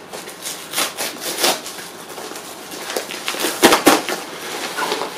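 Mailer bag rustling and crinkling as it is pulled open by hand after being cut, with a few sharper crackles, the loudest about three and a half to four seconds in.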